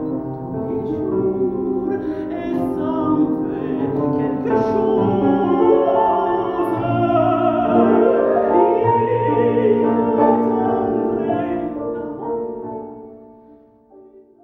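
A woman singing in operatic style with wide vibrato, accompanied by a grand piano; the music fades out near the end.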